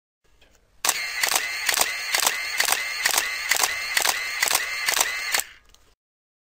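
Camera shutter firing in a continuous run, about two clicks a second over a steady whir, starting about a second in and cutting off after about four and a half seconds.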